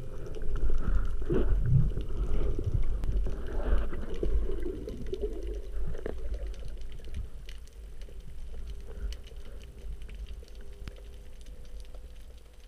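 Underwater noise picked up through an action camera's waterproof housing: water rushing and rumbling past it as the spearfisher dives, dying away as he settles on the bottom, with faint scattered clicks.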